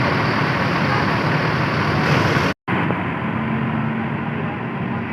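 Steady noise of vehicles at a bus terminal, with a faint steady hum in the latter half, broken by a sudden brief dropout about two and a half seconds in.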